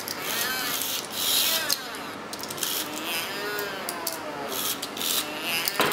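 Skinned Furby's voice played through a grafted-on voice transformer: warped, warbling chatter whose pitch keeps bending up and down. It runs over the grinding, clicking whir of the Furby's motor and gears working its eyes and beak.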